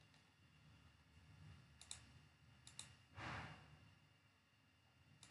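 Computer mouse clicks, three quick double clicks about two seconds in, just under three seconds in and at the end. A short breath-like rush of noise comes just after three seconds, over faint room hum.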